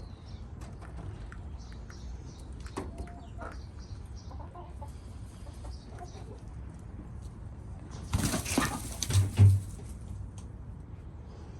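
Backyard chickens clucking and calling faintly, then a sudden loud rustling flurry about eight seconds in that lasts a second and a half and ends in a low thump.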